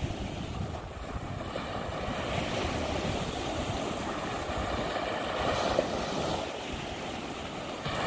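Lake Michigan waves washing on the shore, with wind buffeting the microphone, briefly louder between five and six seconds in.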